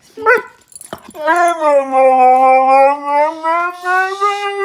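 Husky vocalizing on the "speak" command: a short yip, then one long drawn-out howl that dips and then slowly climbs in pitch.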